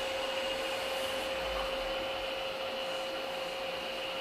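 Steady ride noise inside an Orona machine-room-less traction elevator cab travelling upward: an even hum with two constant tones, one mid-pitched and one high.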